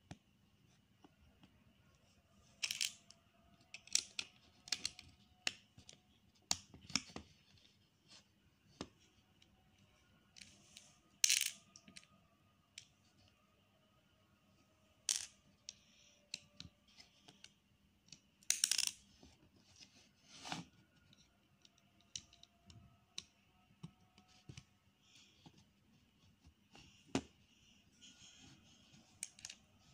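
Plastic Lego bricks clicking and clacking as they are handled and pressed together, in irregular sharp clicks a second or more apart.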